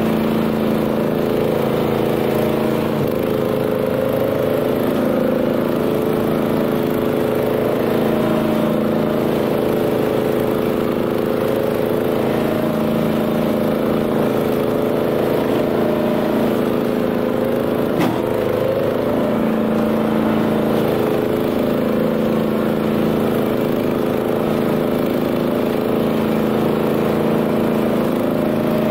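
Honda GX390 single-cylinder engine of a BCS 740 two-wheel tractor running steadily under load, driving a flail mower, its pitch dipping slightly now and then. One sharp click about eighteen seconds in.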